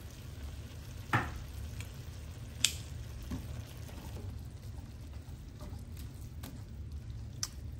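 A creamy tomato sauce sizzling faintly in a nonstick frying pan while plastic tongs stir it, with a few sharp clicks of the tongs against the pan over a low steady hum.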